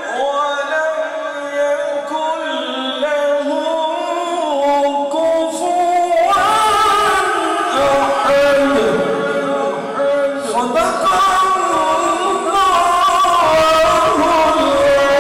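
A man's unaccompanied devotional chanting into a microphone: long held notes that bend and slide in pitch, growing louder about six seconds in.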